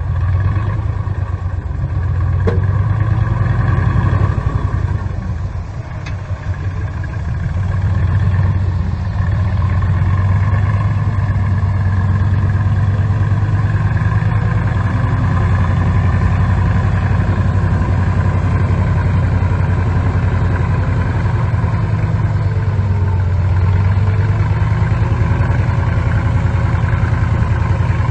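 Bulldozer's diesel engine running steadily with a deep drone. The engine sound dips briefly about six seconds in, then rises again and holds.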